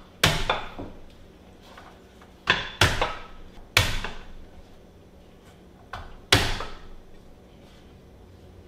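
Palm slapping the flat of a cleaver blade laid over garlic cloves, crushing them against a wooden cutting board. About five sharp whacks at uneven intervals, each ringing briefly.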